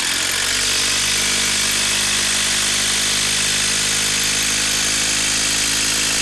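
Hilti brushless cordless impact driver hammering steadily under load as it drives a long TimberLOK timber screw into a wooden log.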